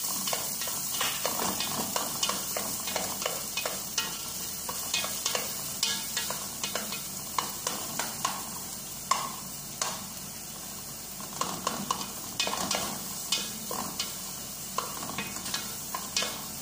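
Diced red onions sizzling in hot oil in a metal pot, while a wooden spoon stirs them and knocks and scrapes against the pot in frequent, irregular strokes.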